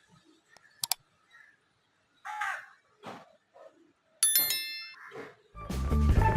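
Several short, harsh animal calls spaced over a couple of seconds, with a sharp click before them and a bright metallic ding after them; music with guitar starts near the end.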